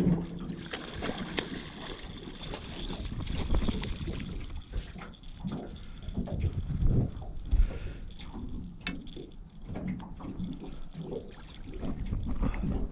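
Water splashing and sloshing as a blue catfish is netted beside an aluminium jon boat and lifted aboard, with scattered knocks against the hull and wind on the microphone.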